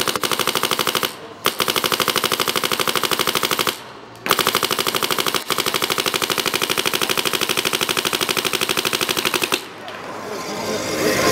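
A Bob Long Victory paintball marker, near new and not yet broken in, firing rapid, evenly spaced shots in three long strings, with short breaks about a second in and about four seconds in. The firing stops near the end and gives way to a rising rush of noise.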